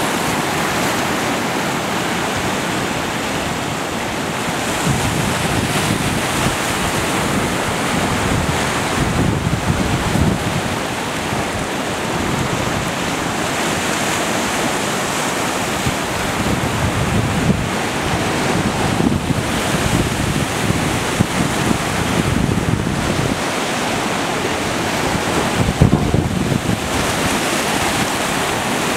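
Sea surf breaking and whitewater washing up the beach, a steady rush of foaming water, with wind buffeting the microphone in gusts.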